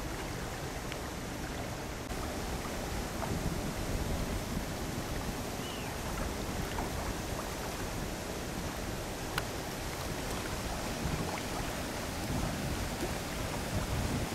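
Wind buffeting the microphone over choppy water, with waves lapping; a single sharp click about nine seconds in.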